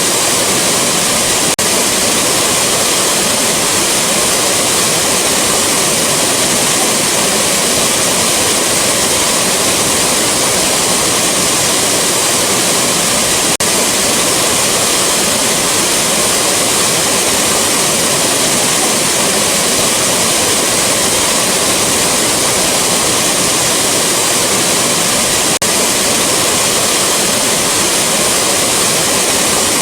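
Rushing waterfall: a steady, loud roar of falling water. It is broken by a faint tick and brief dip about every twelve seconds, where the short recording loops.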